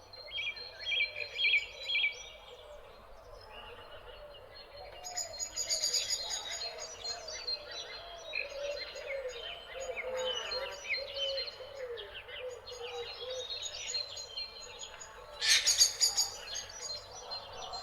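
Several birds chirping and trilling together in an evening chorus, with one lower-pitched call repeated over and over through the middle and a louder flurry of chirps near the end.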